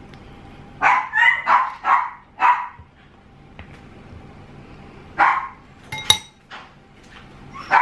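A dog barking: a quick run of several barks, then one more bark about five seconds in. A spoon clinks once against a ceramic bowl about six seconds in.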